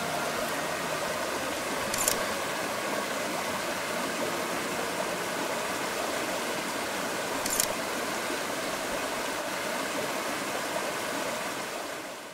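Mountain stream rushing over rocks, a steady even rush, with two short clicks about two seconds in and about seven and a half seconds in; it fades out at the end.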